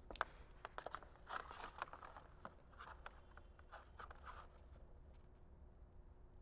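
Faint handling noises: scattered small clicks and brief rustles for the first four seconds or so, then near silence with only a low steady room hum.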